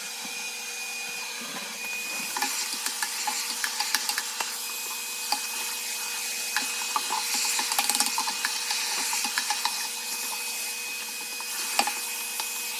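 Vacuum cleaner running steadily with a high whine, crumbs rattling and clicking up through the nozzle as they are sucked out of a drawer.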